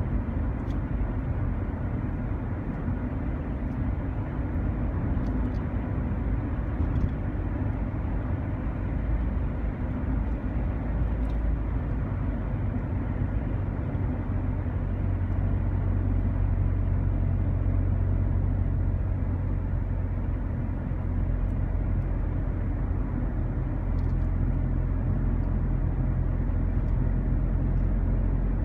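Steady road and engine noise of a car driving, heard from inside its cabin: a low drone over tyre rumble, the drone growing a little stronger about halfway through.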